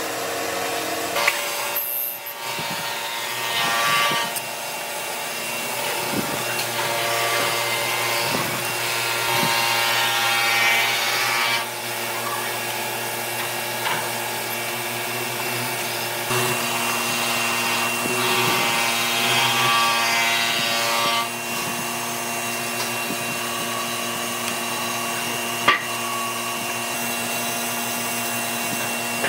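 Hollow-chisel mortiser running with a steady motor hum while its square chisel and auger bore into reclaimed railway-sleeper hardwood. Three longer stretches of louder cutting noise come as the chisel is plunged, and there is a single sharp click late on.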